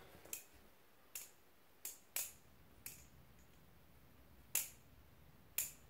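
Maxace Covenant 2.0 balisong butterfly knife being flipped by hand: about seven sharp clicks at irregular intervals as the handles swing and strike.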